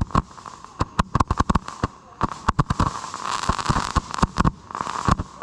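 Fireworks going off: a rapid, irregular run of sharp bangs and pops, with a crackling hiss in the middle.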